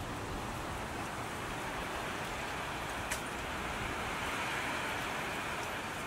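Steady forest ambience: an even rushing noise, like wind in the trees or flowing water, with a single faint click about three seconds in.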